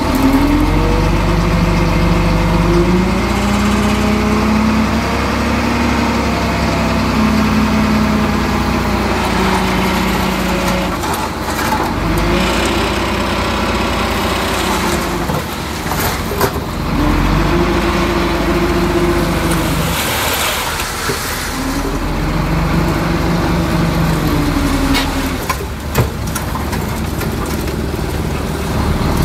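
Heavy construction machine's diesel engine working hard, its pitch swelling up and dropping back in repeated surges every few seconds, with a few sharp knocks.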